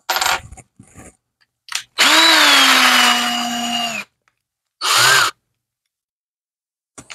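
Cordless drill running with no load for about two seconds, its motor pitch rising as it spins up and then holding steady, followed about a second later by a short second burst, as a small pilot-hole bit is fitted. A brief rattle of handling sounds at the start.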